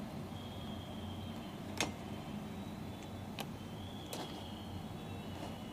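Three sharp small metal clicks as the pivot rod and tiny lock clip of a Maruti Suzuki wiper link assembly are worked by hand; the first, about two seconds in, is the loudest. A steady low hum runs underneath.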